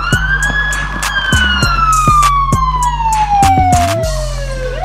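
Police car siren on wail: its pitch rises over the first second, falls slowly for nearly four seconds, then starts rising again at the end. Sharp firework bangs go off through it, over a backing beat with heavy bass.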